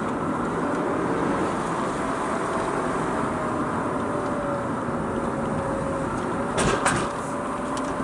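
Mazda RX-8's twin-rotor rotary engine running at a slowly drifting, fairly steady pitch, heard inside the cabin over road noise. Two sharp knocks come close together about a second before the end.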